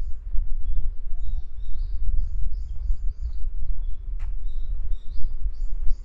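Small birds chirping, a quick run of short, high notes repeated over and over, over an uneven low rumble. There is a sharp click about four seconds in.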